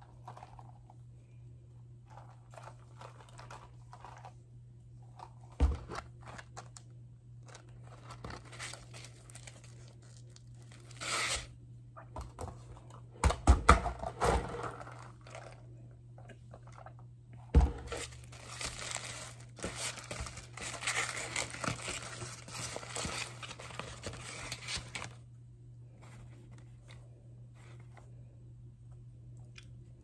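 Fast-food paper packaging crinkling and tearing as it is handled and opened, in bursts, the longest lasting about seven seconds in the second half. Two sharp thumps come about six and eighteen seconds in, over a faint steady low hum.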